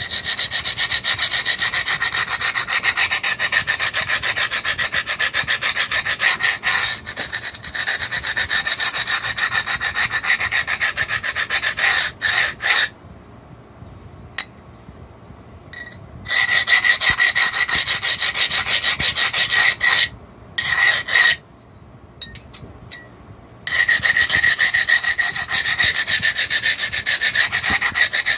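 A grey abrader scraped quickly back and forth along the knapped edge of a cherry quartz slab, a gritty rasping rub that dulls the sharp edge and knocks down the small ridges left by flaking. The rubbing stops for a few seconds about halfway through and again a little later, then resumes.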